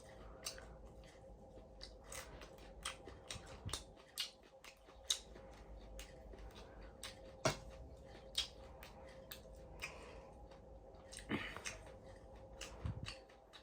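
Close-up chewing of crunchy cooked shrimp eaten whole with shells and legs: irregular sharp crunches and crackles, over a faint steady hum.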